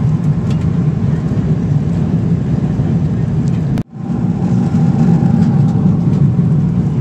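Steady cabin noise of a Boeing 777-300ER airliner in cruise: a deep, even rumble of airflow and GE90 engine noise heard from a window seat. It cuts out for an instant just before four seconds in and then resumes, with a faint steady whine.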